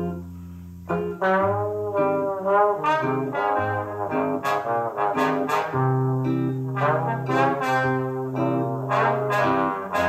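Music played back from a cassette recording on a Sony TC-K555ESL deck recapped with Nichicon Muse capacitors, heard through floor-standing loudspeakers. A melodic line runs over a steady bass line, with a brief dip just before a second in.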